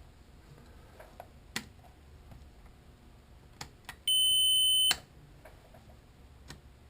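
The 2002 Ford Think instrument cluster's built-in beeper sounds once, a steady high beep lasting just under a second, as the cluster is put into its self-diagnostic mode. A few light clicks come before and after it.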